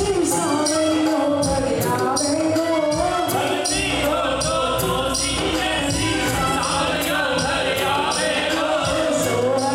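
Hindu devotional kirtan: singing over instrumental music, kept in time by a steady jingling percussion beat of about three strokes a second.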